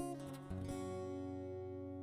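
Acoustic guitar music: chords strummed near the start and again about half a second in, then left ringing and slowly fading.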